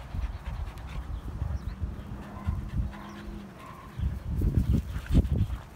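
An Australian shepherd panting close by, over irregular low thumps that are loudest from about four to five and a half seconds in.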